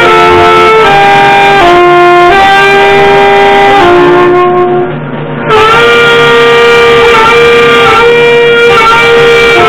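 Two saxophones playing a slow melody together in harmony on long held notes, with a short dip between phrases about five seconds in.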